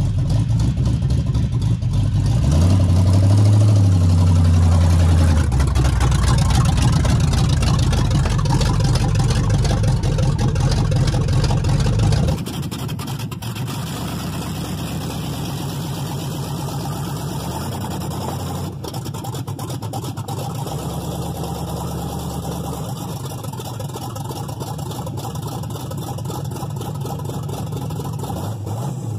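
A 383 stroker V8 in a van revving hard, with the pitch rising and falling about three seconds in, then running loud at high revs during a brief brake-held test hit. About twelve seconds in it cuts abruptly to the engine running much more quietly at low revs.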